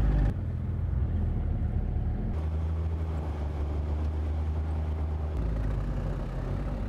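Engines of side-by-side utility vehicles running steadily as they drive along a gravel trail. The engine note shifts abruptly several times.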